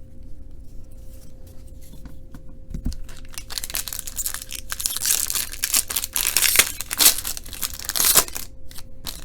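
Trading card pack wrapper crinkling and tearing open, with a few light handling clicks first, then a burst of dense crackling that peaks near the end.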